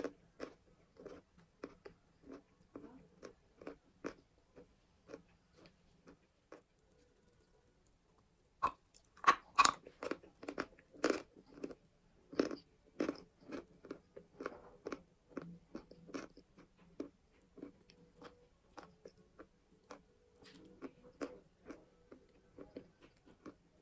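Close-up crunching and chewing of sweet edible chalk. After a pause of about two seconds, a fresh bite brings the loudest run of sharp crunches, and steady chewing follows.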